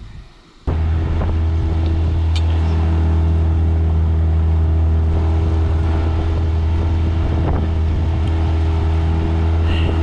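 Outboard motor running at a steady speed, heard from aboard the small boat it drives. It starts abruptly less than a second in and holds an even hum with no change in pitch.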